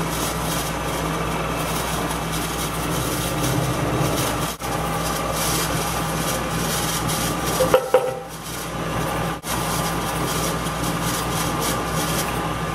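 Drill press running, boring a 5/8-inch counterbore into a wooden hub: a steady motor hum with a constant air hiss, and a short knock about eight seconds in.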